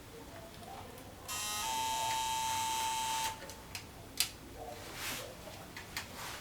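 A steady high-pitched whine lasting about two seconds, starting a little over a second in, followed by a few light clicks and taps of small parts being handled.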